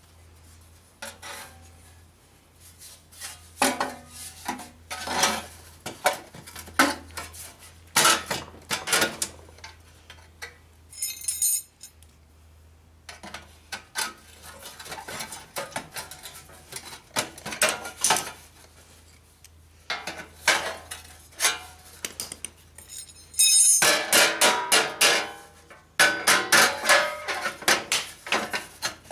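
Metal tools and parts being handled: irregular clinks, clanks and knocks, some ringing briefly, with a denser run of rapid metallic clatter in the last few seconds, over a faint steady low hum.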